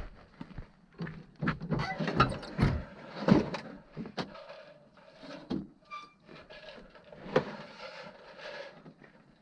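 Irregular clicks, knocks and scraping of objects being handled, with a short high squeak about six seconds in.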